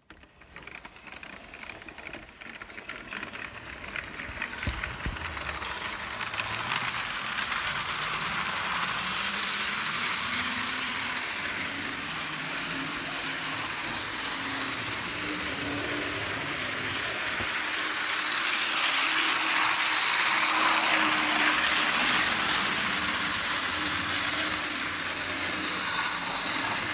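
HO-scale Model Power/Playart Shinkansen bullet train running on model railway track: a small electric motor's whine over the rattle of wheels on the rails. It builds up over the first several seconds, then runs steadily and is a little louder about two-thirds of the way through.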